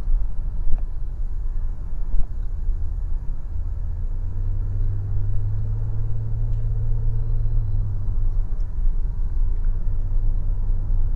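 Cabin noise of a Citroën C6 with a V6 diesel cruising at highway speed: a steady low rumble of engine and tyres. A deeper engine drone swells from about four to eight seconds in. Two light knocks come in the first couple of seconds.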